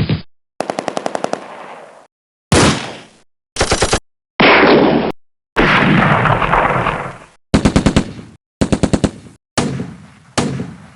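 A run of gunfire sound effects, one clip after another with dead silence between them: rapid machine-gun bursts, single shots, and near the middle a longer blast that fades out over about two seconds.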